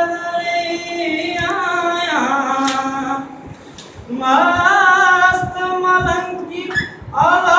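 A young man singing unaccompanied into a microphone, holding long notes with melodic turns and wavers. He sings in phrases, pausing for breath about three seconds in, with a new phrase starting near the end.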